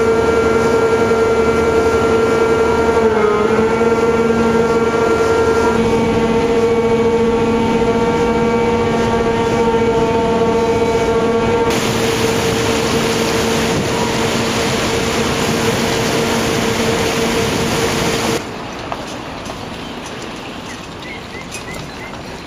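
Paddle steamer's on-board machinery giving a loud, steady drone, heard on deck by the engine room. About twelve seconds in, the rushing of the churned water alongside the hull joins it. For the last few seconds it gives way to a quieter wash of wind and water.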